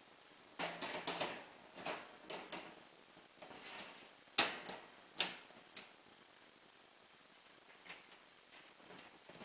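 Stainless steel lid and rim toggle clamps of a container mixer bowl being handled: irregular metal clicks and clacks, a short scrape, and one sharp clack about four and a half seconds in.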